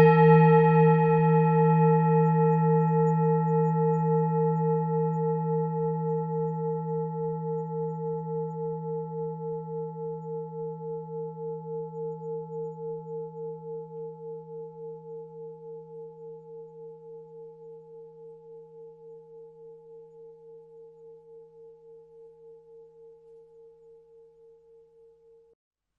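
Tibetan singing bowl ringing after a single strike: a deep tone with a few higher overtones and a slow, even waver, fading steadily over about 25 seconds and stopping shortly before the end.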